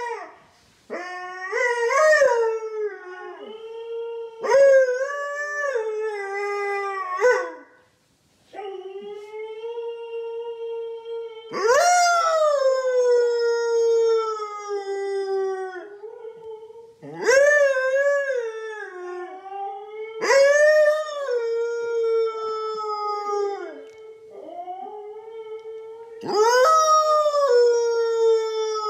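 Siberian husky howling: a string of long, loud howls, each rising at the start and then held or sliding slowly down, with short breaths between them.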